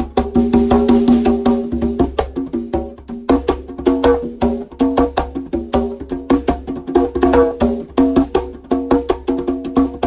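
A pair of wooden conga drums played by hand: a fast, continuous run of slaps and ringing open tones.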